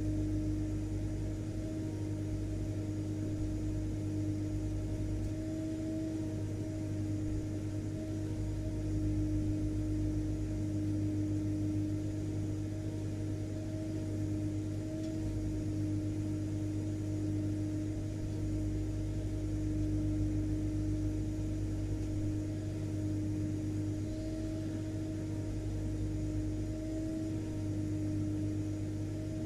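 Vacuum cleaner running steadily: an unchanging motor drone with a steady hum and a held tone.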